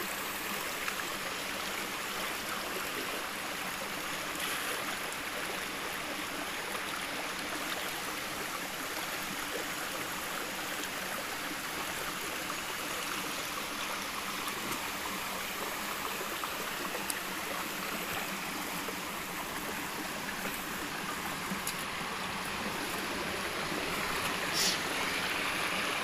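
Shallow rocky stream, water running and splashing steadily over stones. A single brief knock comes near the end.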